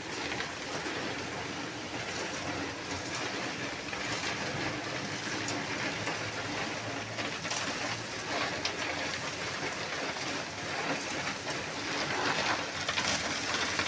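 Steady rain-like hiss with scattered short knocks and scrapes, from work on a concrete pour for columns and beams.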